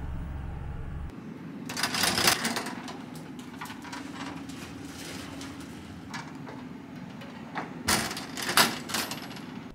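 Clicks and clatter of a wooden locker door being opened about two seconds in, then a key turning in the locker's lock with a run of clicks near the end, over a steady low hum.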